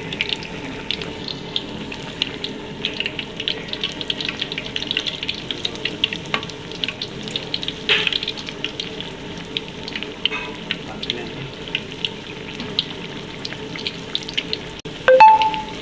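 Battered banana fritters deep-frying in sunflower oil in a wok, a steady sizzle full of small crackling pops. Near the end comes one loud clink with a brief ring.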